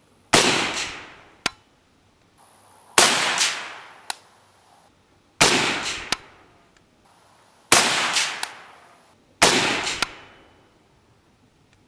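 IWI Galil ACE rifle in 7.62x39 firing five single shots, a little over two seconds apart, each dying away over about a second. A faint sharp click follows a few of the shots.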